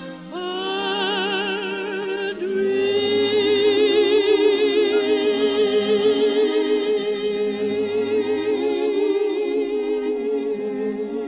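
A woman sings in operatic style over an orchestra, ending a ballad with a long, high held note with wide vibrato from about two and a half seconds in. The sound is an old radio recording with its treble cut off above about 4 kHz.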